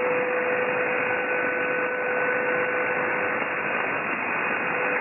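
Shortwave receiver hiss on the 40 m band in lower sideband: steady band noise heard through a 3 kHz filter, with a steady low heterodyne whistle and a fainter higher one. No station is on the frequency.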